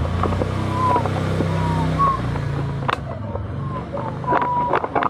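An engine running steadily, its pitch dropping and fading somewhat after about two and a half seconds, with scattered clicks and short high chirps on top.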